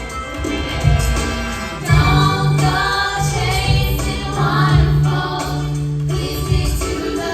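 A pop song playing: several singing voices over a strong, steady bass line.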